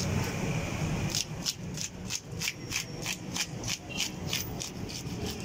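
A hand-held toothed fish scaler rasping scales off a large fish in quick repeated strokes, about three a second, starting about a second in.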